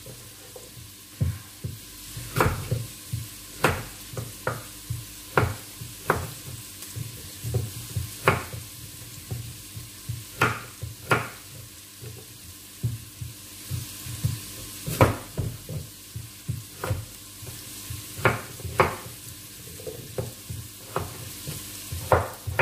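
Kitchen knife cutting peeled raw potatoes into chunks on a wooden cutting board: sharp knocks of the blade striking the board, about one a second and sometimes in quick pairs.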